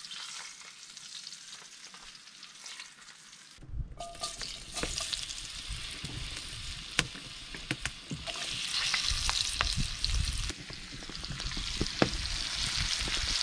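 Hot fat sizzling in cast-iron skillets, with many sharp pops and crackles: quieter at first while the fried trout fillets are lifted out, then louder after about three and a half seconds as cut potatoes fry for chips.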